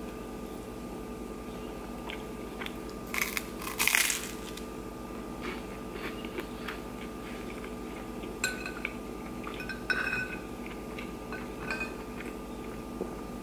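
Metal spoon scraping and clinking on a glazed ceramic plate, chasing the last crumbs of corned beef hash, with the plate ringing briefly at a few of the clinks. Chewing and crunching of toast come in between, and the loudest clatter comes about three to four seconds in.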